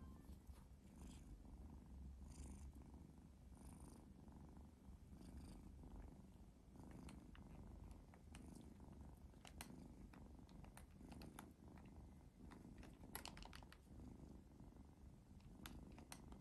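Faint, steady purring of a two-month-old kitten as it sucks on a finger, with scattered faint clicks from about seven seconds in.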